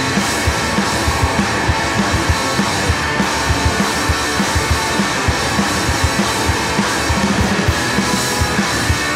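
Rock'n'roll band playing loud, with electric guitar over a steady, driving drum beat.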